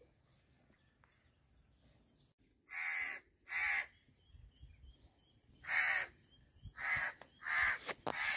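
A crow cawing: a series of six short, harsh caws, starting about three seconds in.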